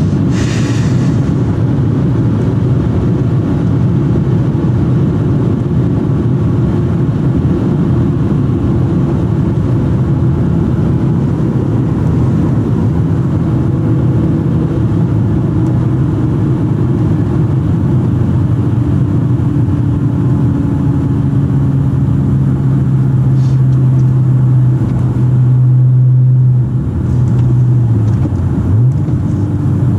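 Supercharged 3.0-litre V6 of an Audi S4 B8 with an X-pipe exhaust and APR intake, heard from inside the cabin while cruising at a steady motorway pace: a steady low drone. There is a short hiss in the first second and a brief dip in the drone near the end.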